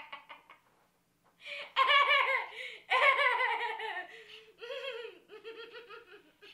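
A woman's laughter tails off in the first second; after a short pause a long, loud burst of high-pitched laughter breaks out and slowly fades.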